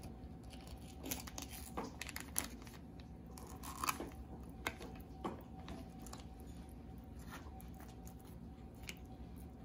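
Kitchen knife cutting ruffed grouse breast meat off the breastbone, making scattered soft crunches and clicks against bone and the plastic bag under the bird, over a faint steady hum.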